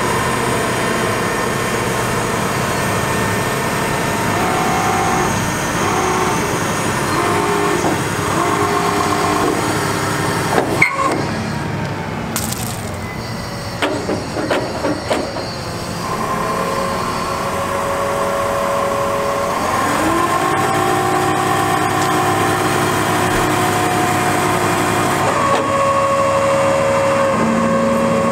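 Hydraulic system of an Altec DC47TR digger derrick running as the boom is retracted and swung, a steady mechanical whine with the truck's engine pulling the pump. The pitch steps up and down as the controls change, with one sharp clank near the middle.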